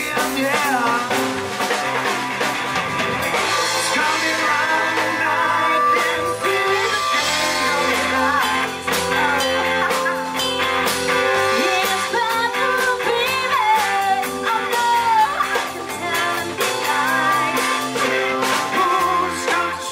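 A live rock-and-blues band playing: a woman singing lead over electric guitar, bass guitar, a drum kit and an electric keyboard.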